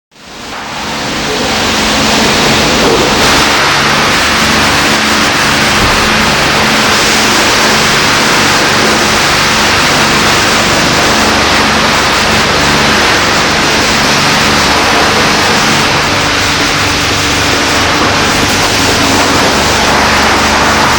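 Car wash running: a steady rush of spraying water over a low, steady machine hum, fading in over the first two seconds.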